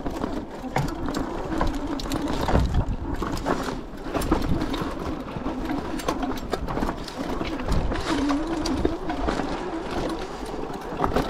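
Electric fat-tire bike riding over rocks: the bike rattles with constant quick knocks and clatter from the rough ground, over a motor whine that rises and falls.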